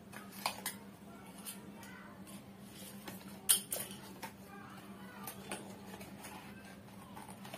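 Small cardboard box being opened by hand: scattered crackles and sharp clicks as the flaps and inner packing are pulled, the loudest a little after three seconds in, over a steady low hum.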